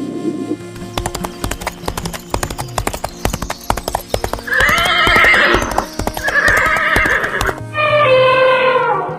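Horse hooves clip-clopping in a quick run of sharp knocks, then a horse whinnying twice, the loudest sounds, and another drawn-out call near the end, all over steady background music.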